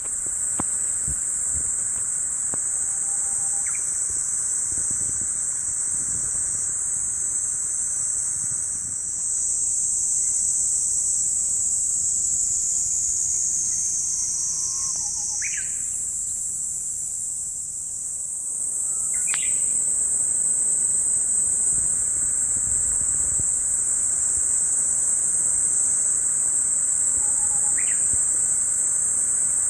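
Steady, high-pitched buzzing of insects in the surrounding vegetation, with a few brief high chirps now and then.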